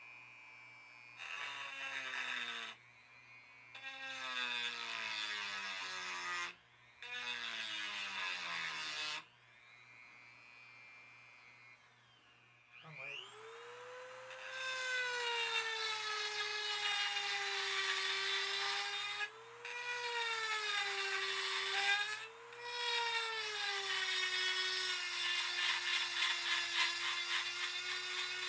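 Craftsman rotary tool with a carbide pine-tree burr grinding cast iron. It runs in three short bursts whose whine falls in pitch. Then it spins up about halfway through and runs steadily, its whine sagging in pitch several times as the burr works the metal.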